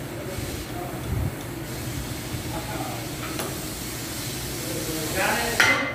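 Metal lathe running in a machine shop, a steady motor hum under a hissing cutting noise. There is a low thump about a second in and a sharper, louder sound near the end.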